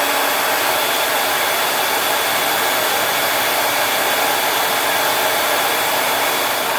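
Conair Infinity Pro hair dryer running steadily: a constant rush of blowing air with a thin, high, steady whine.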